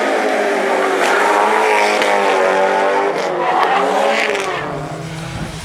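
Rally car engine revving hard, its pitch climbing and dropping again and again through gear changes, then easing off near the end.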